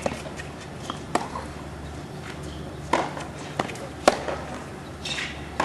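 Tennis rally on a hard court: a tennis ball struck by rackets and bouncing on the court, heard as sharp pops about once a second, the loudest about four seconds in.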